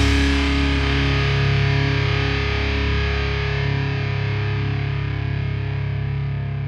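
Distorted electric guitar with effects holding a sustained chord that slowly fades out as the song ends.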